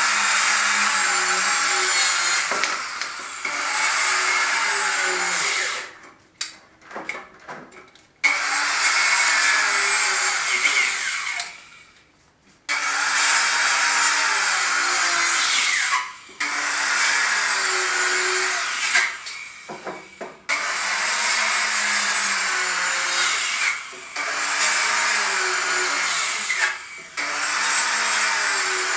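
Handheld circular saw cutting out a 2x12 wooden stair stringer. It runs in a series of cuts a few seconds long, with short pauses between them.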